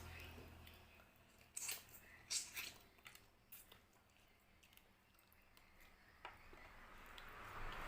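Close-up eating sounds of fried carp: soft chewing broken by a handful of short, crisp crunches and clicks, mostly in the first half.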